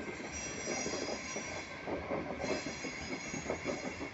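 Express passenger train's coaches rolling past at speed, wheels knocking over the rail joints. A high metallic wheel squeal rises over the rumble twice, for about a second and a half each time.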